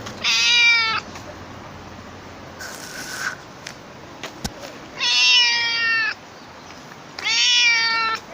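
Black stray cat meowing loudly three times, each meow drawn out for about a second: a talkative cat calling to be petted.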